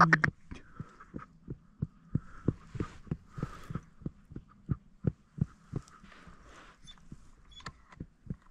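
A dog panting close by, quick soft breaths at about three a second.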